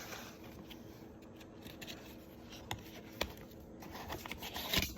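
Paper and stickers being handled: faint rustling with two light clicks midway and a louder rustle near the end.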